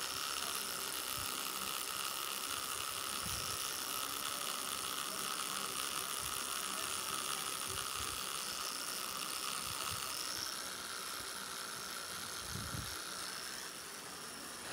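Pen-style tattoo machine running with a steady high whine as its needle works ink into the skin; it drops a little in level near the end.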